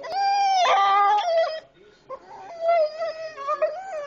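Beagle whining in long, wavering high cries: one drawn-out cry for about a second and a half, a short break, then another that wavers up and down. She is whining from distress at being left at home.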